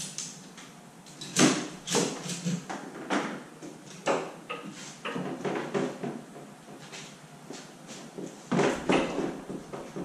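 Irregular knocks, clunks and rattles of a Jeep Wrangler hardtop hung from ratchet straps being handled and shifted by hand; the loudest bangs come about a second and a half in and again near the end.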